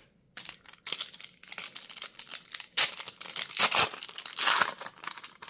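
Clear plastic wrapper of a sealed Magic: The Gathering Secret Lair card pack crinkling and tearing as it is pulled open by hand, starting about half a second in as a run of irregular crackles.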